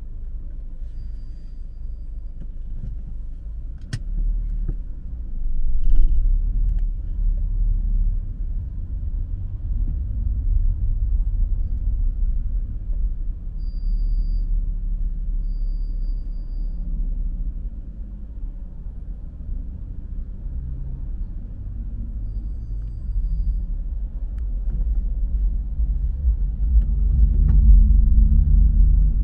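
Car driving on city roads: a steady low rumble of engine and road noise, with a sharp click about four seconds in. It grows louder near the end as the engine note strengthens.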